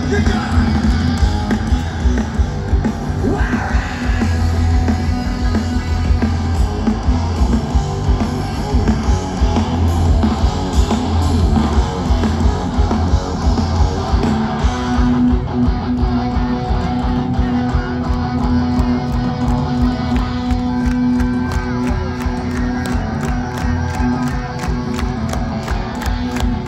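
Loud live rock band: distorted electric guitars, bass and drums, with sung and shouted vocals. About halfway through, a low note holds under a steady, even drumbeat.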